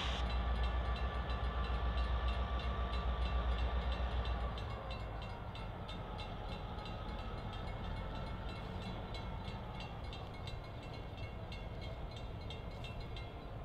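EMD GP9 diesel-electric locomotive's 567 engine working as it moves a cut of tank and hopper cars at low speed, a deep pulsing rumble that eases off about four and a half seconds in, leaving a steadier, quieter drone.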